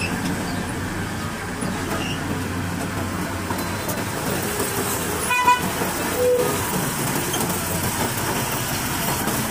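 Excavator diesel engine running steadily, with a short horn toot about halfway through and a brief higher tone just after.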